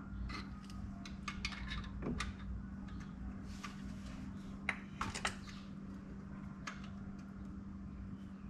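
Scattered light metallic clicks and clinks of a thread tap and adjustable wrench being worked out of a freshly tapped hole in the car's oil pan, the sharpest clicks about halfway through, over a steady low hum.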